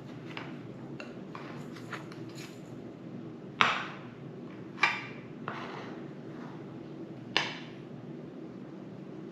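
Dishes and utensils clinking while a slice of cake is served: three sharp clinks with a short ring about three and a half, five and seven and a half seconds in, and a few softer taps between.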